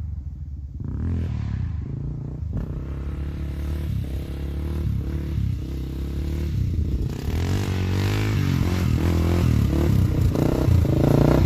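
Honda TRX400EX sport quad's single-cylinder four-stroke engine running under hard throttle, revving up and down in repeated bursts and getting louder toward the end.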